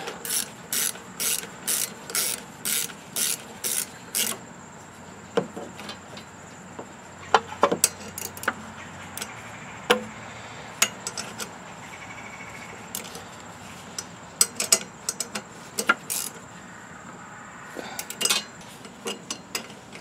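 A ratchet wrench clicking in even strokes, about two a second, as a carburetor mounting stud with two nuts locked on it is driven home into a small single-cylinder Kohler engine. It stops about four seconds in, and scattered sharp metallic clicks and taps of the tools on the engine follow.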